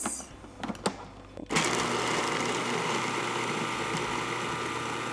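A few clicks as the food processor's lid and pusher are handled, then about a second and a half in the motor starts and runs steadily, chopping sautéed mushrooms and pecans.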